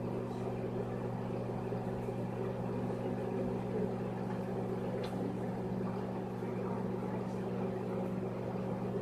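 Microwave oven running with an egg in a bowl of water inside, giving a steady, even hum.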